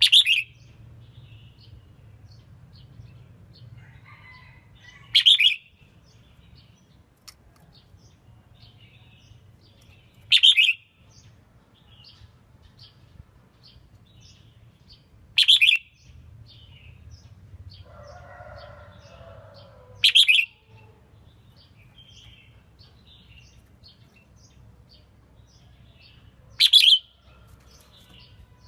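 Red-whiskered bulbul calling: six short, sharp calls spaced about five seconds apart, with fainter chirps in between over a low steady hum.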